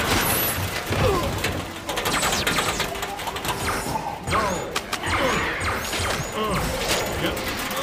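Film sound effects of a swarm of alien spider creatures: dense clattering and knocking of many legs, with crashes, under many short shrill chirps and screeches that slide down in pitch.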